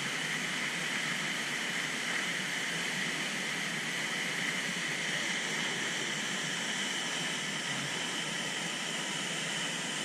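Waterfall falling into a rock pool: a steady, even rush of falling water.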